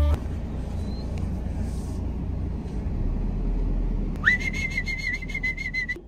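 A person whistling: about four seconds in, one note swoops up and is held high and steady with a slight warble, over a low rumble.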